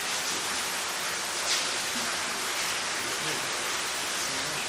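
Steady rushing hiss of falling water, with a small tap about a second and a half in.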